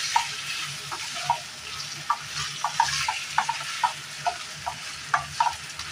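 Beef pieces sizzling in a hot nonstick frying pan as they are sautéed, with a steady frying hiss. A wooden spatula stirs them, knocking and scraping against the pan about two or three times a second.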